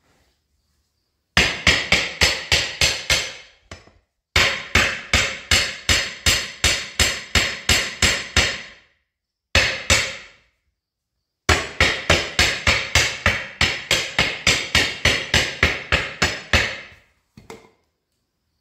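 Rapid, evenly spaced hammer blows, about five a second, in three long runs with short pauses between and a couple of single strikes.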